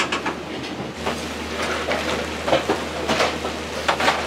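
Restaurant kitchen work sounds: a scattered series of short knocks and clinks from utensils and dishes, over a steady low hum of kitchen equipment.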